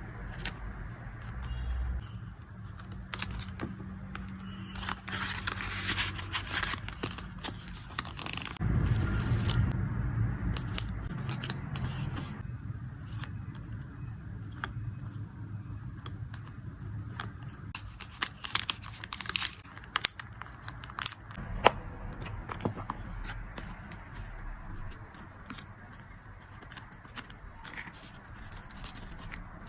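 Photocards and their plastic packaging being handled and packed by hand: crinkling plastic, scrapes and rustles, with many sharp clicks and taps throughout.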